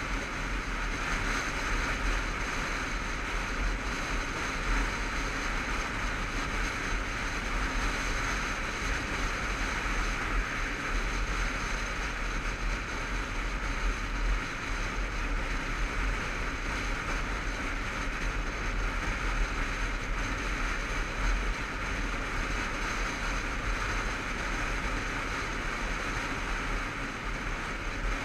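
Motorcycle riding steadily along a lane: steady wind rush over the bike-mounted GoPro's microphone, with a low rumble beneath from the wind and the bike's engine.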